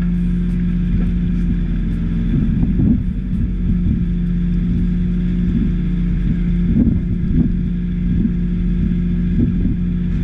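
A fishing boat's engine running steadily with a constant low hum, with wind on the microphone.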